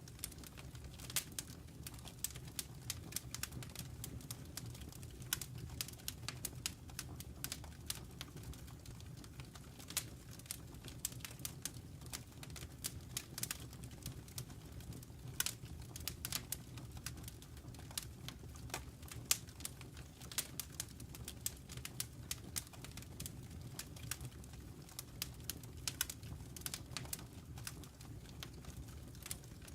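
Wood fire burning in a fireplace, crackling with many irregular sharp pops over a low steady rumble.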